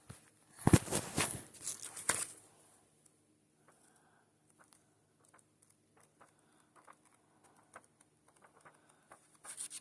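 Paper pages of a drawing book being handled and flipped: a burst of rustling and page noise in the first two seconds, then faint scattered taps and rustles, a little busier near the end.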